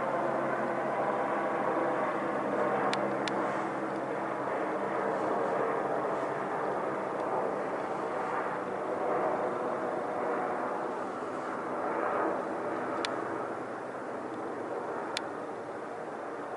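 Single-engine helicopter in flight: a steady drone of turbine and rotor that swells and eases slowly as it passes, a little fainter near the end. A few brief sharp clicks are heard over it.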